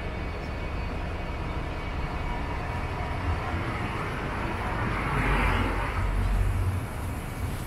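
Steady low rumble of city traffic, with a passing vehicle swelling up and fading away about four to six seconds in.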